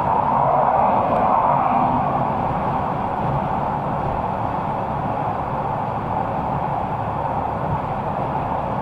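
Steady road and wind noise of a 2021 Ford F-150 PowerBoost hybrid pickup cruising at highway speed, heard inside the cab, slightly louder in the first two seconds.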